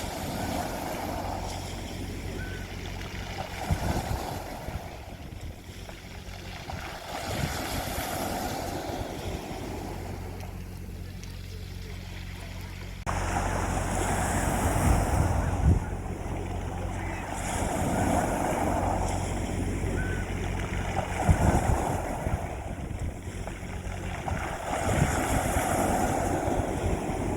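Sea waves breaking and washing on a beach: a surging rush every three to four seconds over a steady low rumble, getting louder about halfway through.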